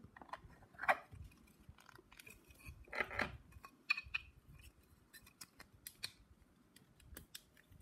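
Cardboard packaging being handled and folded into a stand: scattered light clicks, taps and scrapes, with a couple of longer rustles about a second and three seconds in.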